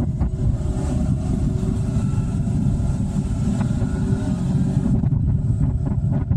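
Wind rushing over the microphone of a camera on a moving motorcycle, a loud steady low rumble, with the motorcycle's engine running beneath it at road speed.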